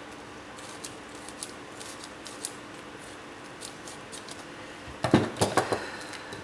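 Scissors cutting plastic cling wrap: faint light ticks at first, then a quick run of several sharp snips about five seconds in.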